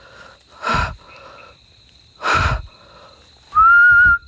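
Two heavy breaths blown close to the microphone, then a loud, steady whistle held from near the end.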